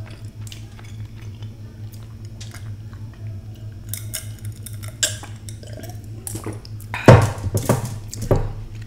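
Coke being sipped and swallowed from a small glass, close-miked, with small glass clicks over a steady low hum. A louder burst of sound comes about seven seconds in.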